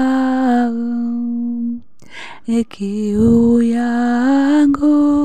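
A woman's voice singing a slow Swahili worship song in long, drawn-out notes, with a short break just before two seconds in.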